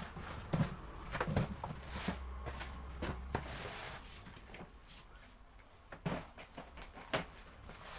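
Irregular rustling of plastic wrapping and cardboard, with scattered knocks and bumps, as a plastic-wrapped Usha Stellar 20-litre air cooler is pulled from its carton and set down.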